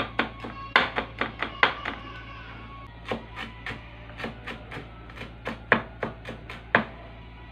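Chef's knife chopping fresh mint on a wooden cutting board: a quick, uneven run of knocks, about three a second, easing off briefly around two seconds in. Background music plays underneath.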